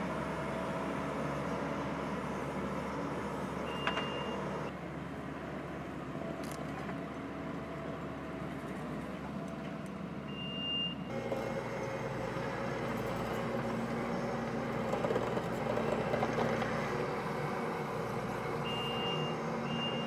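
Skid steer engine running steadily while it pushes dirt with a dozer blade. A high backup-alarm beep sounds briefly a few times, most often near the end.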